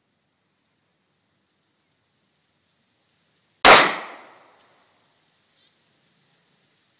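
A single shot from a Smith & Wesson .40 caliber handgun, one sharp crack about halfway through with a tail that fades over about a second.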